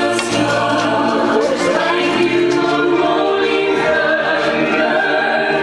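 A choir singing a Christian hymn in long, held notes, played from a phone over Bluetooth through a Rockville RPG152K PA system's 15-inch speakers.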